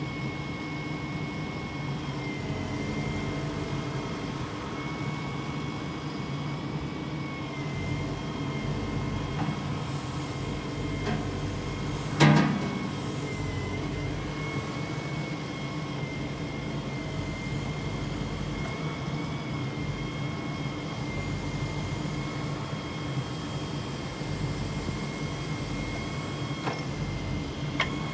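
Volvo EW150E wheeled excavator running steadily, a low engine hum with a constant high-pitched whine over it. A single loud clunk about twelve seconds in.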